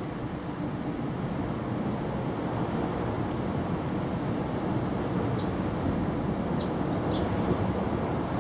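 Steady low outdoor background rumble, with a few faint, short high chirps scattered through it.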